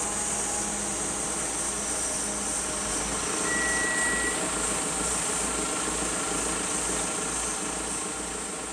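A small diesel bus's engine running as it pulls in and comes to a stop, with a brief high-pitched brake squeal as it halts, then idling.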